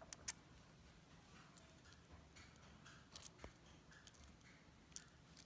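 Near silence broken by a few faint, sharp clicks and ticks as the metal body and parts of a Robertshaw pneumatic thermostat are handled, twice near the start, a couple more in the middle and one near the end.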